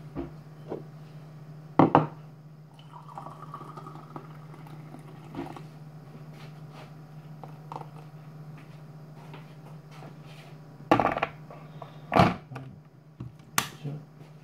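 Freshly boiled water poured from an electric kettle, with several sharp clunks as the kettle and crockery are handled. A steady low hum runs underneath.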